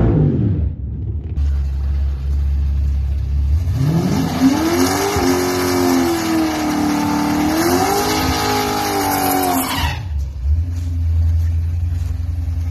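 A 1978 Ford Fairmont drag car's engine idling with a low rumble, then revved up and held high, dipping and rising again before it cuts off abruptly; after that another low, steady idle.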